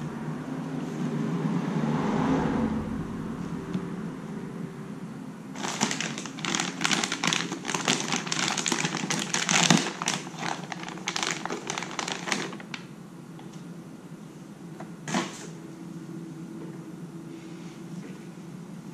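Foil-covered heat-shield boots crinkling and rustling as they are handled and slid onto spark plug wires. A dense run of crackles starts about six seconds in and lasts about seven seconds, followed a little later by a single sharp click. A steady low hum runs underneath.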